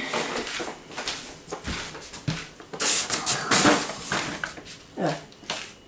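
Rustling and scattered light knocks of groceries and packets being handled and set down on a kitchen counter. The loudest rustle comes about three seconds in.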